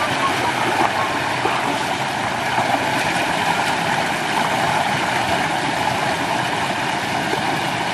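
Shallow forest stream rushing steadily over rocks.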